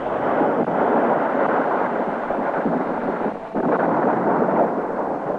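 A loud, sustained rumbling crash in two long swells, broken briefly about three and a half seconds in.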